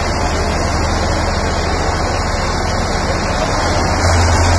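Two tractor diesel engines running hard under load as they pull against each other, chained back to back. The deep rumble is steady and grows louder about four seconds in.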